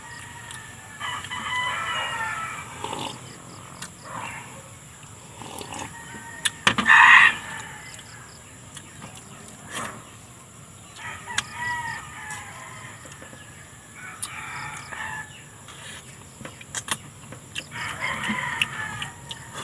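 Roosters crowing about five times, the loudest crow near the middle, with faint clicks of eating close by.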